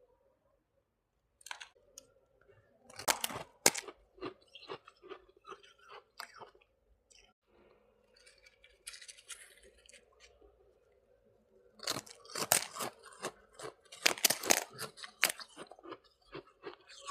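Close-up crunching and chewing of freezer frost (soft white ice) in the mouth. A cluster of sharp crunching bites comes about three seconds in, then softer chewing, then a longer run of loud crunches from about twelve to fifteen seconds.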